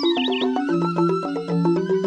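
Instrumental background music of quick, evenly spaced melodic notes, with a brief high warbling chirp near the start.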